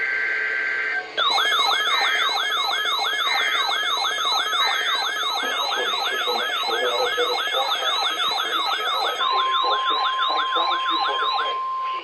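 NOAA Weather Radio Emergency Alert System test tones. First comes the end of a SAME data burst of two high warbling tones. Then an electronic alert siren sweeps up and down about two and a half times a second, with faint repeated data bursts beneath it, and about three-quarters through the steady 1050 Hz weather radio alert tone joins in; both stop just before the end.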